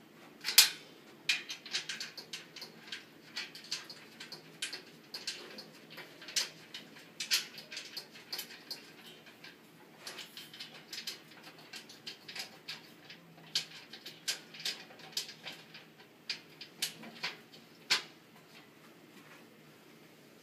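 Small metal screws and an Allen key clinking and rattling against a steel shelf tray as a hand picks through them, in irregular sharp clicks, the loudest about half a second in and another near the end.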